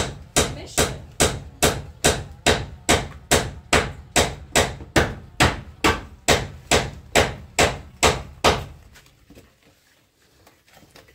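Rhythmic knocking, about two and a half sharp strikes a second, steady and even, stopping abruptly about nine seconds in.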